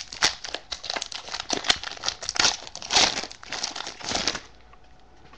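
Foil wrapper of a Topps Prime football card pack being torn open and crumpled by hand: quick, irregular crackling that stops about four and a half seconds in.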